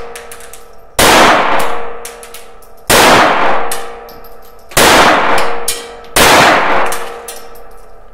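Browning Buck Mark .22 LR semi-automatic pistol fired four times, about two seconds apart. Each sharp crack has a long ringing tail that dies away before the next shot, a racket in the small range booth.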